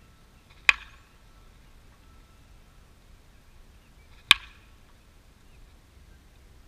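Baseball bat hitting pitched balls in batting practice: two sharp cracks of contact, about three and a half seconds apart, each ringing briefly.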